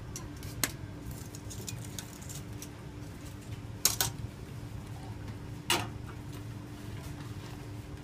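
Coins set down on a hard counter: a few sharp metallic clinks, two close together about four seconds in and another near six seconds, over a steady low hum.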